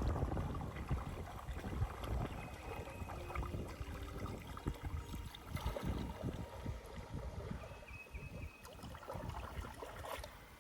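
Kayak paddle strokes in flat water, with wind rumbling on the microphone.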